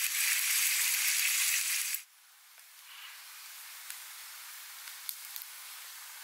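Sausages and egg sizzling hard in a pan over a wood fire, a loud steady hiss that cuts off suddenly about two seconds in. After it, a much fainter hiss with a few small clicks.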